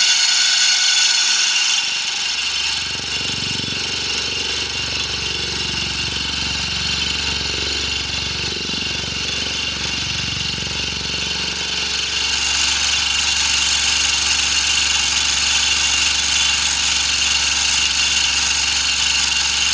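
Milling machine running with a single-insert fly cutter taking a face cut across a square metal block. The machine noise is steady throughout, with a low hum joining about two seconds in and a high whine from then until just past halfway.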